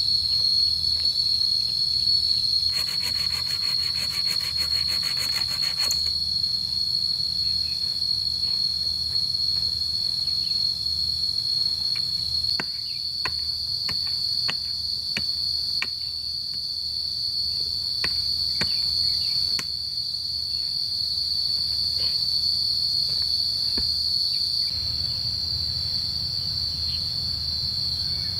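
Insects droning steadily at a high pitch, with a faster pulsing buzz joining for about three seconds near the start. Past the middle comes a string of sharp knocks, a digging tool striking into stony red soil about twice a second.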